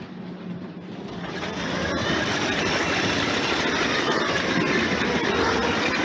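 LEGO toy train running along its plastic track, a steady whirring and rattling that grows louder about a second in, then holds steady.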